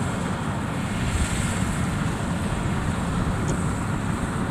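FMWorld WD102 Pro rice combine harvester running steadily while cutting rice: its turbocharged 102-horsepower Mitsubishi engine and harvesting machinery make a constant noise.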